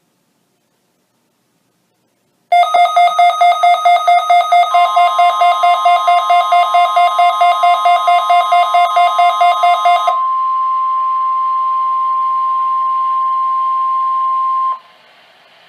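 Loud electronic alarm beeping, pulsing about five times a second, overlaid by the NOAA Weather Radio 1050 Hz warning alarm tone, a single steady tone. The tone starts about two seconds after the beeping and runs for about ten seconds. The beeping stops about three quarters of the way in, and the tone cuts off sharply near the end.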